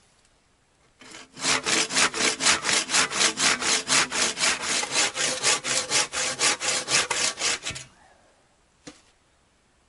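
A badly dulled handsaw cutting through a thin log, in quick even strokes of about four a second, starting about a second in and stopping shortly before the end. A single short knock follows.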